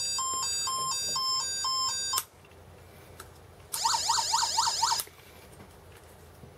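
Velleman MK113 sound generator kit's small speaker sounding an electronic siren off a lowered bench-supply voltage. A two-tone hi-lo beep alternates steadily and cuts off about two seconds in. A second later comes a fast run of rising wails, about four a second, that stops after just over a second.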